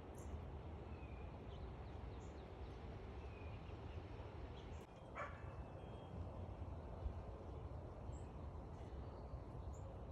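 Backyard birds giving faint, short, high chirps every second or so over a steady low outdoor rumble, with one louder, harsher call about five seconds in.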